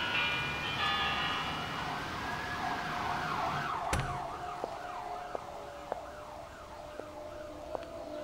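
Emergency vehicle siren wailing in slow rising and falling sweeps, switching to a quicker yelp about three and a half seconds in. A sharp knock comes about four seconds in, then footsteps click at a steady walking pace, about one every two-thirds of a second.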